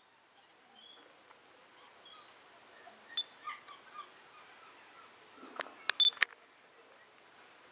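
Faint outdoor background with scattered short chirps. About six seconds in there is a quick cluster of sharp clicks with short high beeps, the loudest sounds here, and one more short beep comes at the very end.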